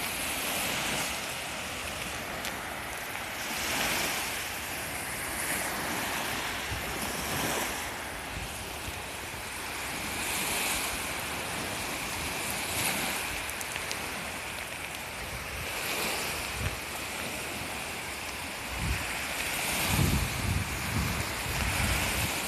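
Small waves breaking and washing up on the shore, the surf swelling and fading every few seconds, with wind buffeting the microphone. Heavier low rumbles near the end.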